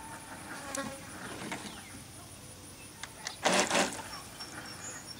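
Small electric motor of a toy remote-controlled speedboat buzzing in very shallow water, with one short, loud burst of its propeller churning up spray about three and a half seconds in.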